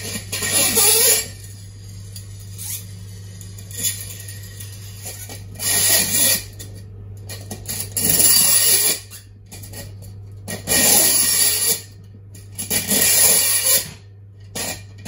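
Metal capacitor fins and spacers clinking and scraping in short bursts, about six, as they are handled and stacked on the threaded rods, over a steady low hum.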